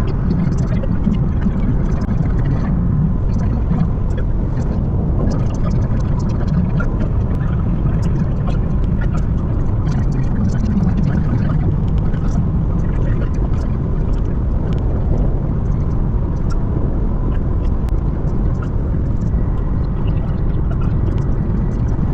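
Steady road and engine noise inside a car driving fast on the road, with faint scattered ticks.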